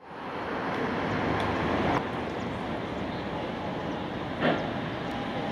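Steady rush of road traffic on a city avenue, with a streetcar coming along its tracks, and a short loud knock about four and a half seconds in.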